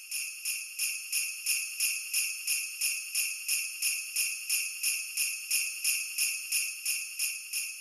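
Sleigh bells jingling in a steady, even shaking rhythm, a bright high jingle.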